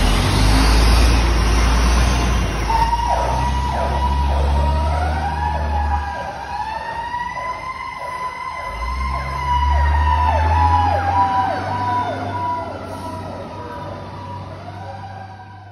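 Fire truck pulling out with its diesel engine rumbling, then its siren starting up about three seconds in: a wailing tone that rises and falls with a fast repeating yelp laid over it, fading toward the end as the truck moves away.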